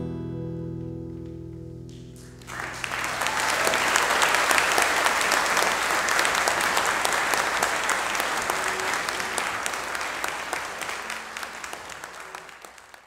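The last chord of a live song, with guitar and strings, rings out and fades. About two and a half seconds in, the audience breaks into applause, which goes on and slowly dies away.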